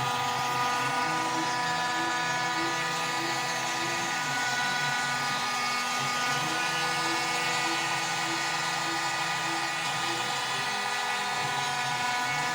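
Homemade CNC router running, with the spindle motor giving a steady high whine. A lower motor hum comes in for stretches of a few seconds as the machine's axes move.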